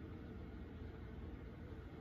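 Quiet room tone: a faint, steady hiss with a low hum underneath, no distinct sound.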